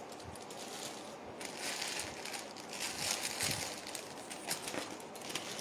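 Soft rustling and handling noises as pieces of jewellery are put away and the next one taken out, coming in a few short patches over a low steady hiss.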